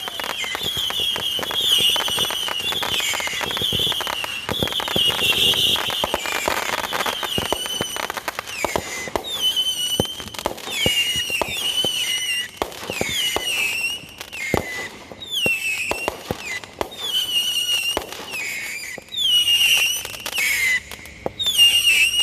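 Consumer fireworks going off: shrill whistling fireworks over a dense crackle of pops. For the first few seconds the whistles run into one another, then they come as separate short whistles, each dipping in pitch, about one a second.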